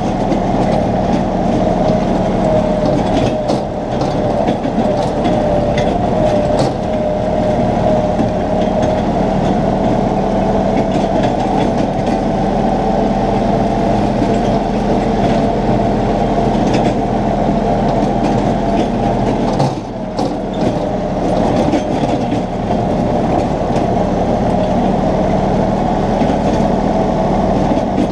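Compact tractor engine running steadily under load while mowing, a constant drone with a steady whine over it, dipping briefly about two-thirds of the way through.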